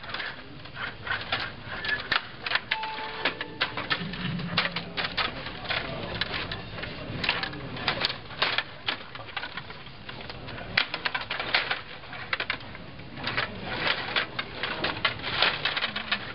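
Stiga table hockey game in play: rapid, irregular plastic clacking and rattling from the rods, spinning players and puck striking the table and boards.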